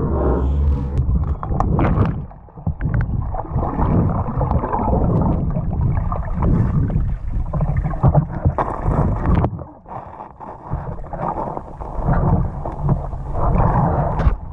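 Muffled underwater water noise: water rushing and gurgling around a submerged camera as the diver swims, rising and falling, with a few small clicks and two brief lulls.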